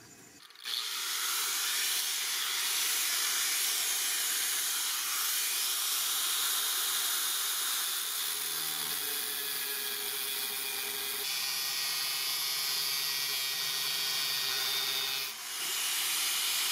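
Makita angle grinder with a thin cut-off disc cutting into the edge of a steel plate, a steady loud hissing grind. It starts about half a second in and dips briefly near the end before running on.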